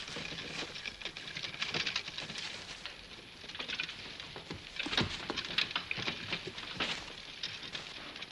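Footsteps and shuffling of a group of people walking together: dense, irregular scuffs, with one heavier step about five seconds in.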